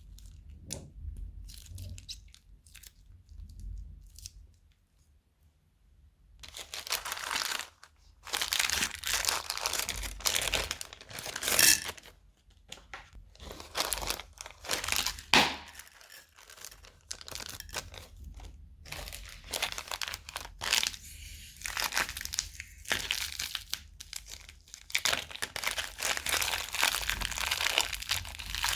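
Crunchy slime being squeezed and worked by hand, crackling and crinkling in irregular bursts. A few sparse clicks come first and a short lull follows; after that the crunching is nearly continuous, with a few sharper snaps.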